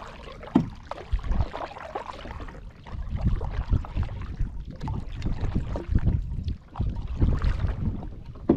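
Kayak being paddled with a double-bladed paddle: the blades dip and pull through the water with a splash about every second, with low knocks against the hull.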